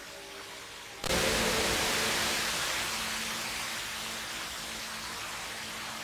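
Rushing water of the HSBC Rain Vortex indoor waterfall, a steady hiss that jumps suddenly much louder about a second in, then eases off a little.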